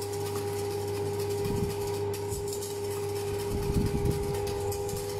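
Wire whisk stirring eggs and sugar in a stainless steel bowl set over a pot of hot water, warming the mix to dissolve the sugar. A steady electrical hum with two held tones runs underneath, with soft low bumps about one and a half seconds in and again near the end.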